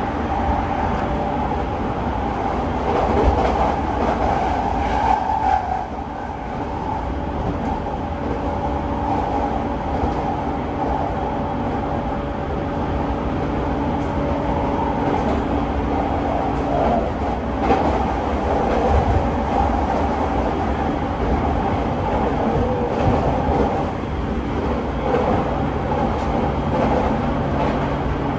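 JR E217 series electric train running at steady speed, heard from inside motor car MoHa E217-46: steady traction motor hum over the rumble of wheels on rail, with a few rail-joint knocks.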